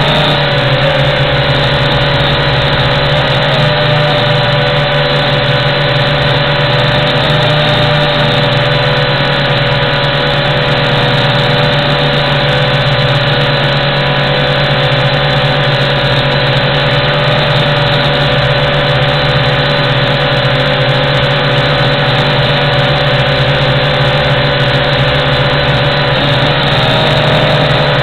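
WLToys Q222G toy quadcopter's motors and propellers running, heard from its onboard camera. It is flying in altitude-hold mode, and the buzzing whine stays steady and loud while its pitch wavers slightly.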